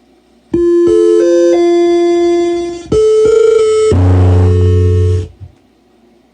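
Old Macintosh computer chimes played loud through a Logitech Z906 speaker system: a stepped synthesized arpeggio, then a second chime broken off about three seconds later by a harsh, buzzy crash sound with heavy bass that cuts off suddenly. This is the classic Mac crash or error sound.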